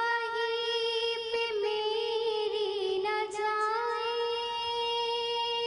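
A high voice singing a devotional naat, holding long drawn-out notes with a few small slides in pitch.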